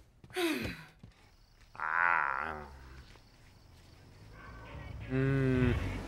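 A person's wordless vocal sounds: a short falling cry near the start, a long wavering groan about two seconds in, and a steadier low groan about five seconds in.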